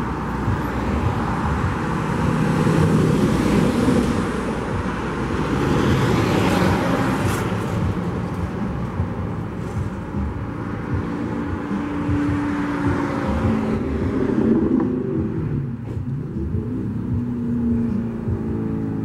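Road traffic: diesel semi-trucks and cars passing close by, the rush of tyres and engines swelling and fading as each vehicle goes past, with diesel engines running underneath.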